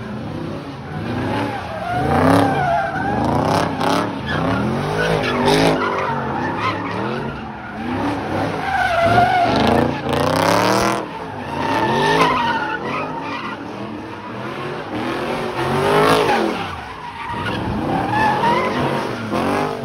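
Cars doing burnouts and donuts: engines revving hard, their pitch climbing and falling again and again, with tyres squealing as they spin on the pavement.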